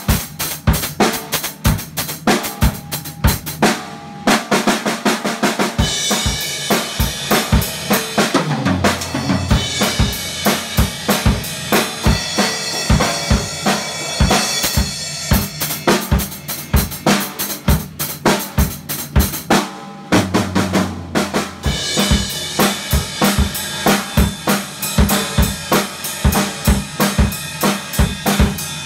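Acoustic drum kit played live at a fast pace: bass drum, snare and toms under ringing cymbals through much of it, with a short break about four seconds in and another near twenty seconds.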